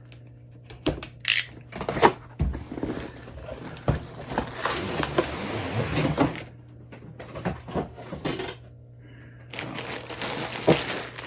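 Cardboard box of a plastic brick set being opened by hand: a few knocks, then a long stretch of cardboard scraping as the lid comes off, followed by plastic bags of bricks rustling as they are handled near the end.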